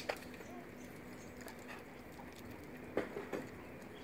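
A few short, faint dog barks, one at the start and two close together about three seconds in.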